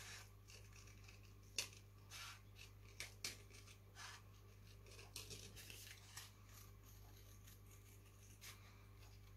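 Small craft scissors snipping through card in short, irregular cuts, faint, over a low steady hum.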